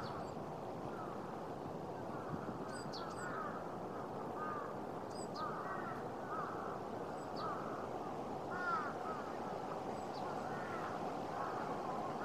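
Crows cawing repeatedly in short arched calls, with a few brief high chirps from smaller birds, over a steady background rumble.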